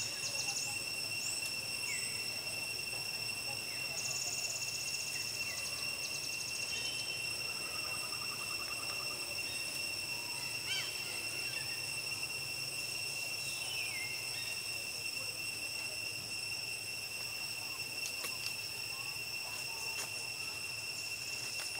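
Steady, high-pitched drone of insects, cicadas or crickets, held on several unchanging tones. Short chirps and a few falling calls from other animals break in now and then.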